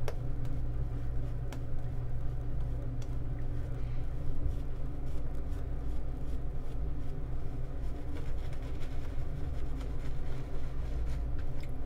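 Boar-bristle shaving brush swishing a slick, thin lather over a bearded face, over a steady low hum.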